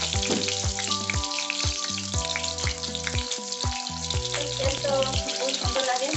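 Green chillies and cumin seeds sizzling steadily in hot oil in a kadai, the tempering stage of the dish, with background music with a steady beat playing over it.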